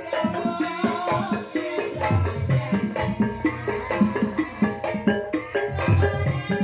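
Banyumasan gending music in the ebeg (hobby-horse dance) style: many struck pitched notes over a busy percussive rhythm with low beats.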